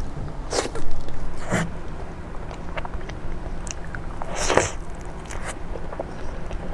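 Close-miked eating: bites into a soft crepe towel roll with cream filling, and moist chewing, with a few louder mouth sounds about half a second, a second and a half and four and a half seconds in.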